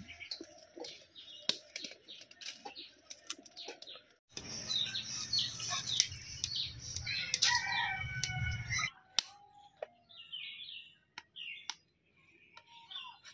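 Small birds chirping, with scattered sharp clicks and knocks. About four seconds in, a louder low rumbling noise comes in under the chirps and stops sharply about four seconds later.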